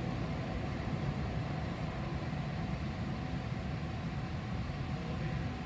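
Steady low hum and rumble of an O-Train light-rail car (Alstom Citadis Spirit) standing at a station with its doors open, heard from inside the car, with a faint steady tone held throughout.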